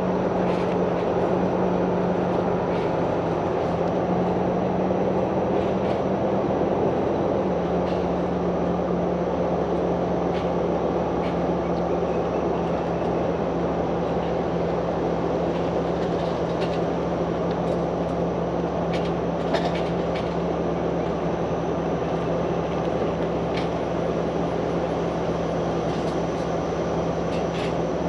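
Tow vehicle driving slowly while pulling a fifth-wheel trailer: a steady engine drone under road and wind noise. The engine note steps down about seven seconds in.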